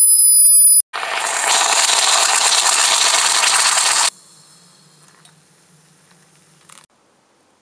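A Bialetti Brikka moka pot on the hob hissing and sputtering loudly as the brewed coffee erupts through its pressure valve. The hiss lasts about three seconds and cuts off suddenly, leaving only faint sounds of the coffee being poured into a glass. Before it, a high steady tone stops under a second in.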